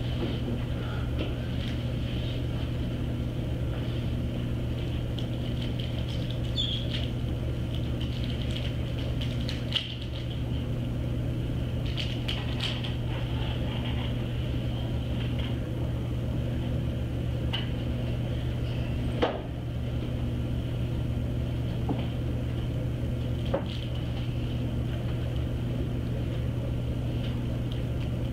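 Steady low room hum from machinery, with a few sharp clicks scattered through it, three of them standing out.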